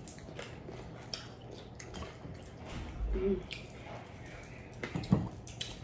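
Close-up eating sounds: wet chewing and lip smacking with small clicks and squishes as fried chicken is eaten and pulled apart by hand, with a short hummed murmur about three seconds in.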